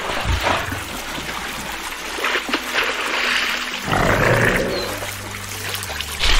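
Water trickling and sloshing around a crocodile swimming at the surface of a pond, over a low steady hum.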